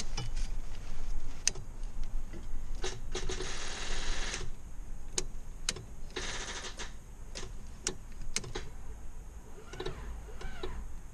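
Honda Civic's D16Y7 four-cylinder engine cranked on the starter in two short bursts, with scattered sharp clicks between them, while two of its spark plug wires are disconnected and the cast exhaust manifold is cracked through.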